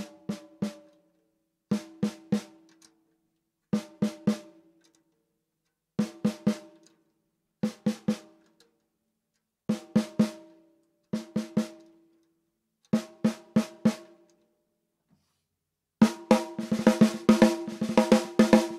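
12x7 stave snare drum with an Australian wandoo wood shell, struck in short groups of three or four hits about every two seconds, each hit ringing briefly with a clear tone. Near the end the playing turns into a fast, continuous roll.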